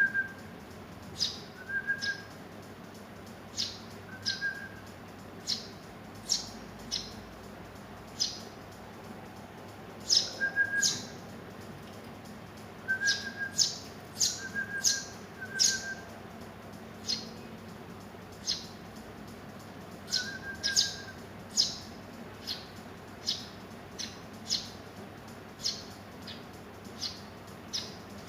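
Eurasian tree sparrow nestlings chirping: short, sharp high chirps, singly or in quick clusters, with an occasional brief lower note among them.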